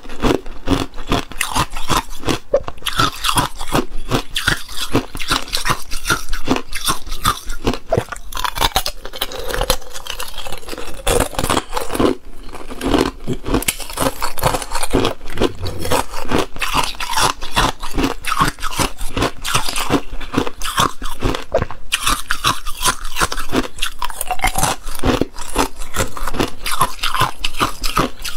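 Hard clear ice cubes being bitten and chewed close to the microphone: a dense, continuous run of sharp cracks and crunches. Partway through, cubes are pried loose from a stack, adding ice scraping and cracking.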